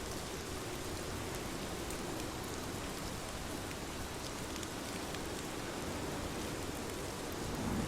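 Steady rain falling and pattering on surfaces, a constant even hiss with scattered drop ticks.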